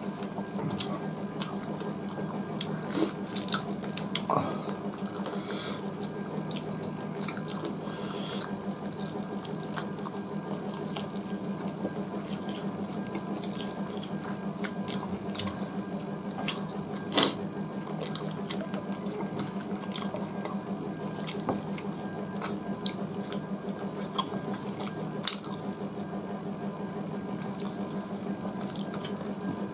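Eating by hand: wet chewing and fingers working rice on metal plates, with occasional sharp clicks of hands or bones against the plates, over a steady low hum.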